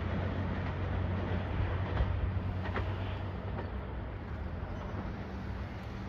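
Steady low rumble and hum of a distant diesel limited express train running, over an even background noise.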